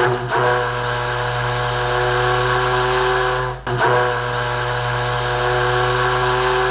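Ship's horn sounding long, steady blasts on one deep note with a stack of overtones. There is a short break about three and a half seconds in before the next blast.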